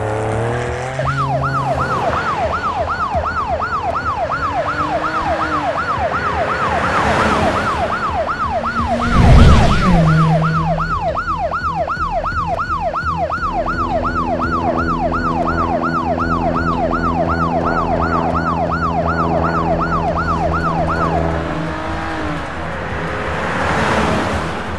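Cartoon police car siren in a fast yelp, rising and falling about two and a half times a second, stopping about 21 seconds in. About 9 seconds in, a loud whoosh with a deep rumble is the loudest moment, over a steady low drone.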